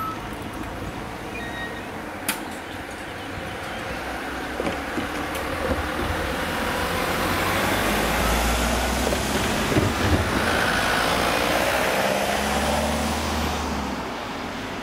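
Road traffic crossing a level crossing: a van's engine and tyres grow louder as it passes close by, loudest in the second half, then fade as a car follows. A single sharp click about two seconds in.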